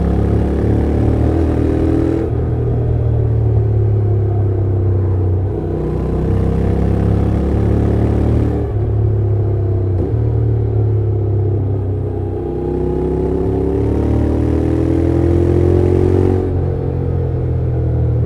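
2024 Honda NC750X's 745 cc parallel-twin engine and exhaust under way. The revs climb and drop back three times: about two seconds in, about eight and a half seconds in, and near the end.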